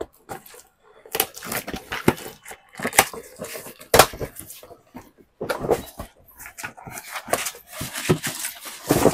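Cardboard carton being handled and opened: irregular rustling and scraping of the cardboard and its flaps, with crinkling plastic wrapping and a few sharp knocks.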